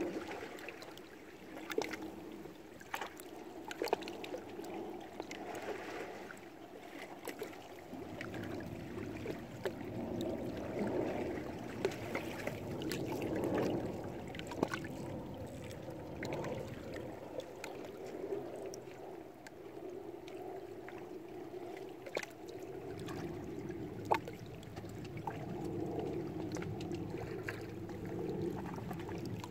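Small lake waves lapping and splashing against shoreline rocks, a wash that swells and eases, with frequent short, sharp splashes.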